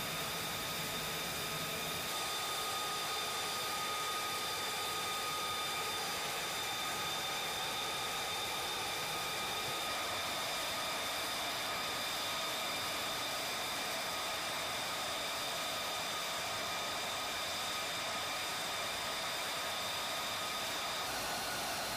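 Steady high turbine whine over a constant rushing hiss, as from an aircraft turbine running at idle. A low hum in the background stops about two seconds in.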